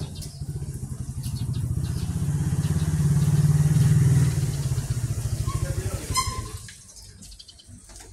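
Small motorcycle engine running as it passes. The sound swells to its loudest about halfway through, then fades away over the following seconds.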